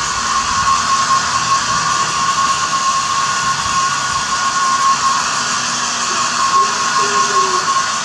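Small handheld electric hair dryer running steadily, a constant rush of blown air with a steady whine, held over damp fur.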